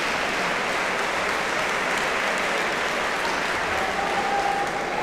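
Audience in a sports hall applauding steadily.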